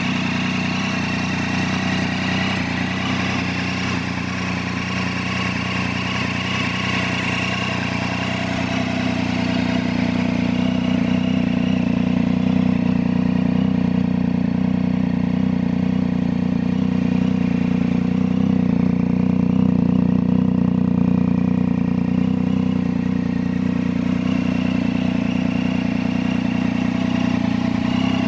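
Triumph Tiger 800's three-cylinder engine idling steadily through a Hurricane sport slip-on exhaust, with a loud, deep exhaust note. It grows slightly louder after about ten seconds.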